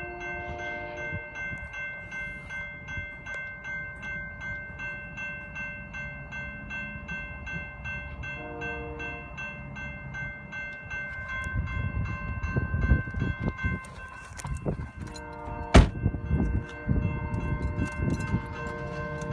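Background music of sustained chime-like tones over a soft, even ticking beat, its chords changing every so often. From about halfway a freight train's boxcars rumble past close by, with a sharp clank a little before the end.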